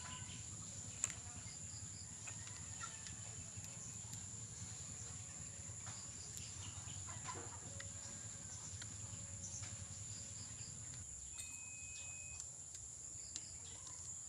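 Faint background: a steady low hum that dies away near the end and a thin, steady high tone, with scattered light clicks and taps, one sharper click about a second in, from parts being handled during an engine teardown.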